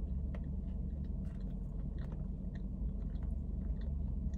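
A person chewing a mouthful of a small soft-bun burger slider, with scattered small wet mouth clicks, over a steady low hum.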